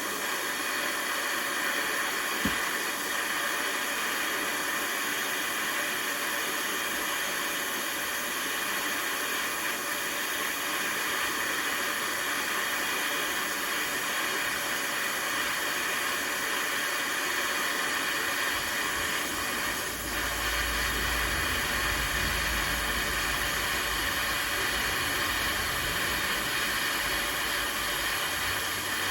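Gas burner hissing steadily while it heats a steel rod. A single low knock comes about two and a half seconds in, and a low rumble joins about two-thirds of the way through.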